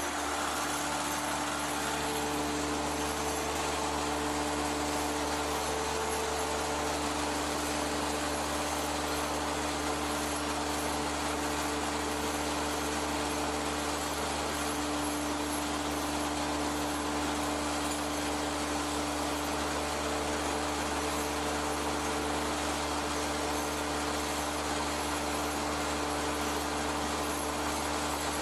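1885 Ober copying lathe running with its chain-and-sprocket drive: a steady machine hum and whir with a few constant tones, holding the same pitch and level throughout.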